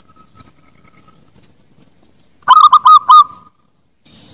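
Zebra dove (perkutut) song: about two and a half seconds in, one loud phrase of rapid, ringing coos lasting about a second, which cuts off sharply.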